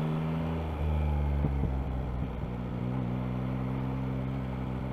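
2024 Yamaha MT-09's inline three-cylinder engine running under throttle as the bike is brought up to about 18 mph. It gets louder about a second in, its note breaks up briefly around two seconds in, then it runs steadily.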